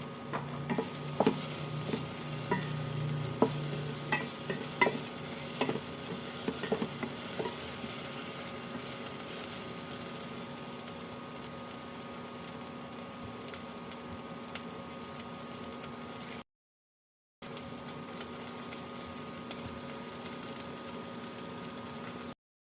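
Food sizzling in a frying pan while a utensil stirs it, tapping and knocking against the pan for the first several seconds. After that the sizzling goes on steadily, breaking off briefly once.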